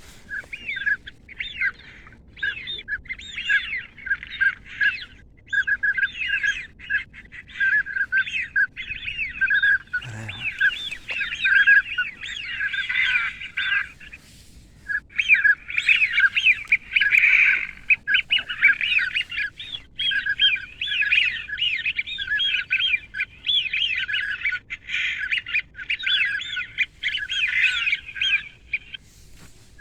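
Ducks calling: a dense run of short, repeated calls with hardly a break, pausing briefly about fourteen seconds in.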